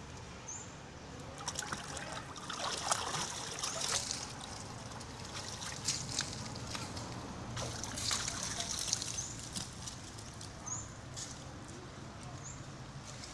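Water splashing and sloshing in a small water-filled basin as young macaques swim and clamber in it, in two irregular spells of splashes, the second about halfway through.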